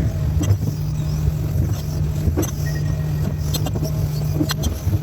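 John Deere excavator's diesel engine running steadily, with a few sharp clicks and knocks scattered through it.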